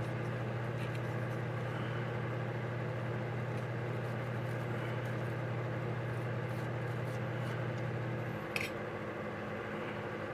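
A steady low mechanical hum that drops away about eight seconds in, with one sharp click just after it drops.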